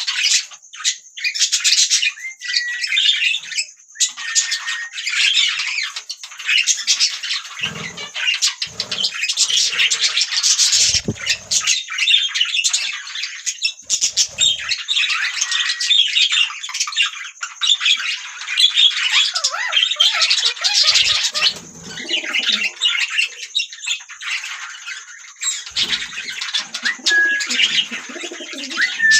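A group of budgies (budgerigars) chattering and chirping almost without a break: fast warbling, squawks and short tweets, with a few soft low thumps among them.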